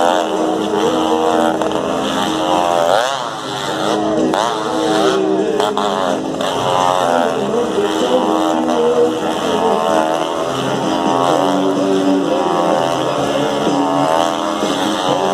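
Two motorcycles revving inside a steel-mesh globe of death, their engine pitch rising and falling over and over as they loop around the sphere.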